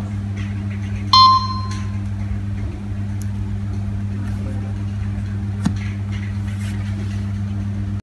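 A Nokia 3220 mobile phone's speaker gives one short, loud electronic beep about a second in, over a steady low hum. A single click follows about five and a half seconds in.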